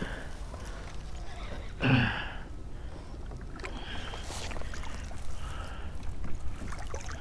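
Steady low wind rumble on an action camera's microphone, with a brief grunt-like vocal sound about two seconds in.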